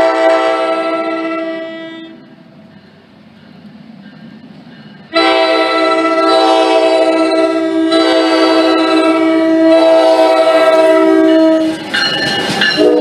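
Horn of an NJ Transit Bombardier ALP-45DP locomotive sounding as it approaches: one blast that fades, a pause of about three seconds, then a long blast of about six seconds. Near the end the horn breaks off briefly as the locomotive passes, with the noise of the train going by, and a new blast begins.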